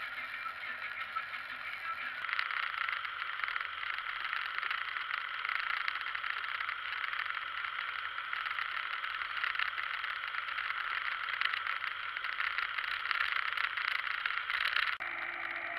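Tractor working a field, heard as a steady mechanical rattle and din through the action camera. The sound jumps to a louder, brighter rattle about two seconds in and changes again near the end.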